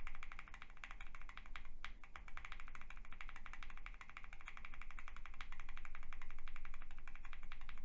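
Fast typing on a QK65 R2 mechanical keyboard fitted with lubed and filmed Everglide Aqua King linear switches: a rapid, even run of key clacks.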